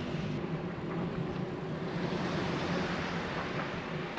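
Steady road-traffic noise heard from a moving bicycle: the low hum of cars' engines and tyres just ahead, with air rushing past.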